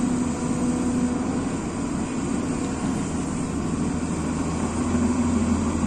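Hyundai crawler excavator's diesel engine running steadily as the bucket digs into a soil pile and lifts its load, the hum rising a little near the end.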